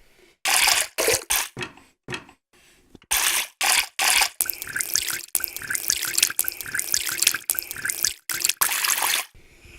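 Water dripping and splashing, in separate clips cut hard one after another: a few short bursts of a second or less, then about five seconds of many quick drips falling into water, which stop abruptly near the end.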